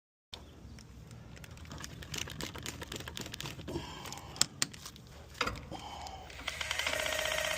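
Light clicks and rattles of tools and fittings being handled. About six and a half seconds in, a steady machine hum with a fast pulsing starts up and keeps running.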